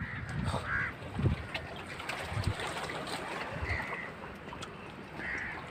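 Steady sea and wind noise, with wind gusting on the microphone and a few short faint cries in the background.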